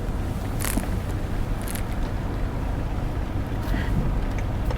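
Car heard from inside the cabin as it backs up, a steady low engine and road rumble, with two short hisses about a second apart near the start.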